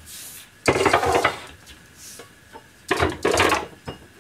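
Two short bursts of clattering and rubbing, about one second and three seconds in: kitchen things being knocked and moved about.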